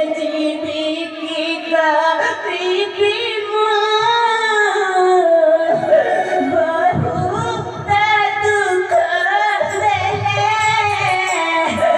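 A high voice sings a slow, melodic stage song with wavering, ornamented pitch, and low drumming comes in after about six seconds.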